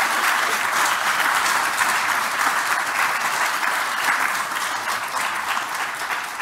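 Audience applauding: many hands clapping in a steady, dense patter that eases off slightly near the end.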